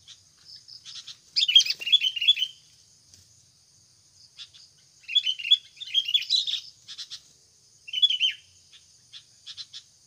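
Sooty-headed bulbuls (kutilang) calling in three bursts of quick, bubbly chirps, with scattered single chirps between them, over a steady high buzz of insects.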